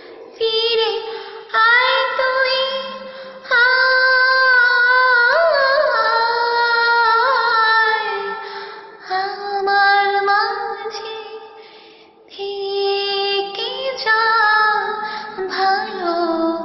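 A female voice singing a slow Bengali song melody in phrases, with long held notes and slides between pitches.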